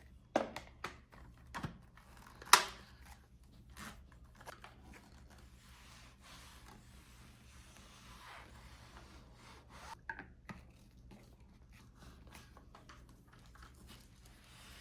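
Handling noises: a few sharp clicks and knocks in the first few seconds, the loudest about two and a half seconds in, then faint rustling and scraping, with two more clicks about ten seconds in.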